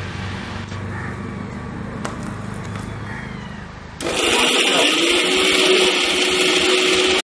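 Low steady hum, then about four seconds in an electric mixer grinder switches on loudly, its motor whining up to speed and running steadily as it grinds the chutney.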